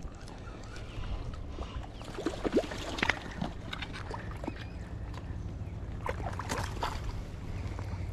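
A hooked trout splashing at the water's surface close to the bank as it is reeled in, a few short sloshes and splashes. Under them runs a steady low rumble of wind on the microphone.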